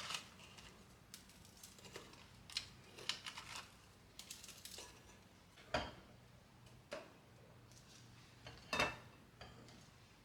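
Quiet, scattered clinks, taps and handling noises of kitchen dishes and utensils, with sharper knocks about six and nine seconds in.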